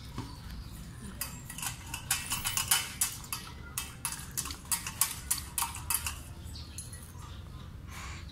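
A husky lapping water from a stainless steel bowl: a quick run of wet clicks and clinks against the metal, about three or four a second, that stops about six seconds in.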